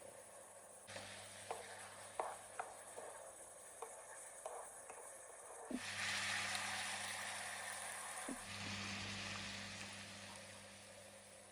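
Food sizzling in a frying pan while being stirred, with light clicks of the utensil against the pan; the sizzle grows louder about six seconds in and eases near the end.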